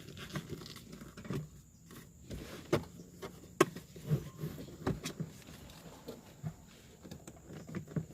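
Irregular sharp clicks and knocks, a dozen or so spread unevenly, from parts and tools being handled during a repair of a car's air-conditioning control panel.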